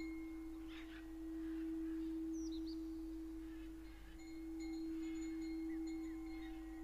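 A singing bowl holding one pure, steady low tone that swells and fades about every three seconds, with fainter high ringing overtones. Jungle birds chirp briefly over it.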